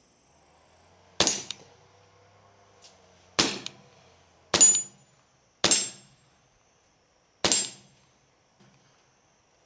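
Hatsan Velox semi-auto PCP air pistol firing five shots one to two seconds apart, with a sixth at the very end. Each sharp crack is followed closely by a short metallic ring of a pellet striking a steel target.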